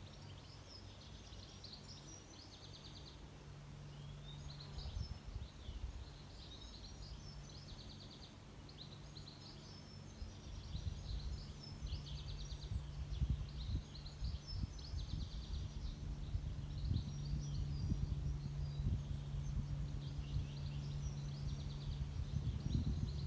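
Songbirds singing, a steady stream of chirps and quick trills, over a low steady hum and a low rumble that grows louder in the second half.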